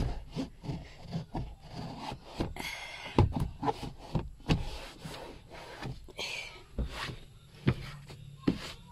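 Irregular knocks and taps with short scrubbing or rubbing noises, a little under 3 s in and again about 6 s in: handling noise from hands-on work.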